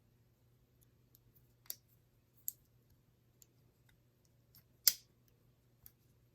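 A few sharp metallic clicks from a multitool being handled, its blade opened and closed. Three clear clicks, the loudest about five seconds in, with fainter ticks between, over a faint steady hum.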